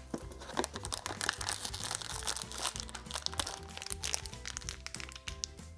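Cardboard advent-calendar door being pushed open and a thin plastic bag crinkling in the hands, many quick crackles, over soft background music.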